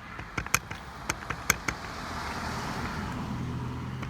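A few sharp clicks and taps, then a motor vehicle passing, its noise swelling and fading with a steady low engine hum.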